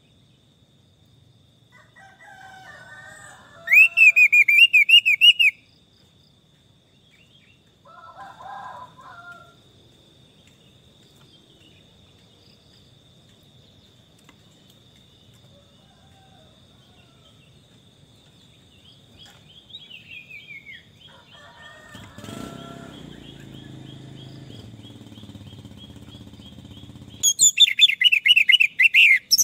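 Orange-headed thrush song: short, loud bursts of rapid high notes about four seconds in and again near the end, over a steady thin high tone. Quieter warbling calls come between, and a lower, drawn-out call from another bird sounds about two-thirds through.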